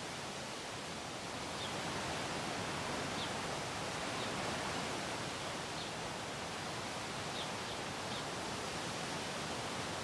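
Steady outdoor nature ambience: an even rushing hiss like wind in leaves. A few faint, short, high chirps are scattered through it.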